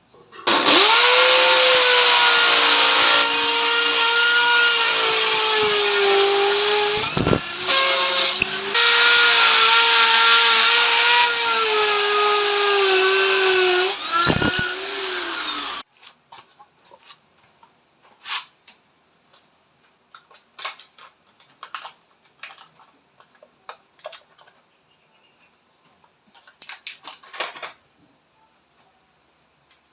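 A power tool running with a steady whine and a hiss for about fifteen seconds, dipping briefly twice before it cuts off. After that come scattered light taps and clicks.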